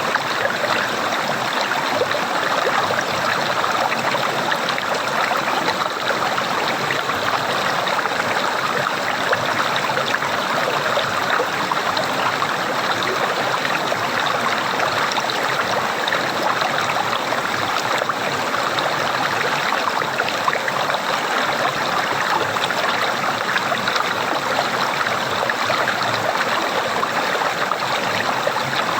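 Running water gurgling in a steady, unbroken flow.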